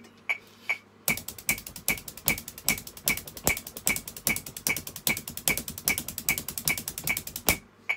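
Sticks striking a drum practice pad, played with alternating foot taps on the floor in a fast, even run of strokes that starts about a second in and stops near the end. A metronome clicks steadily about two and a half times a second underneath.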